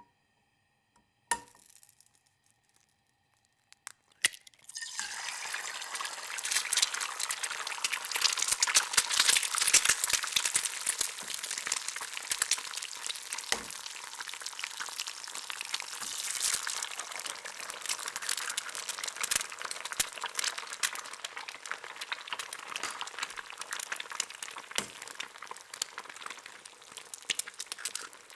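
An egg frying in a hot pan. After a near-silent start broken by a few sharp taps, sizzling begins about five seconds in and carries on steadily, crackling with many small pops of spitting fat.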